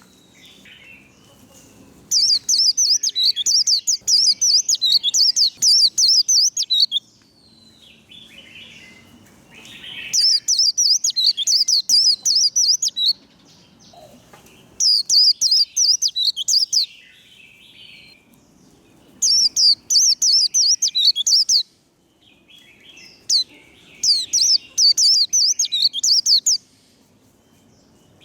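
White-eye (vành khuyên) singing its rapid, high-pitched 'líu' warbling song in five bouts of a few seconds each, with short pauses between.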